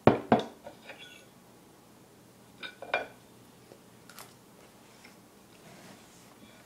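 Metal cutlery clinking against a ceramic plate while eating: two sharp clinks right at the start, a few lighter taps, then another couple of clinks about three seconds in.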